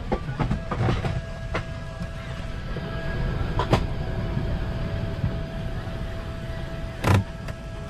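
Electric window shades of an Airbus A380 cabin lowering: a thin steady motor hum starts about a second in, over the cabin's steady low air noise. There are several clicks and knocks in the first second and a half, one near the middle, and a louder knock about seven seconds in.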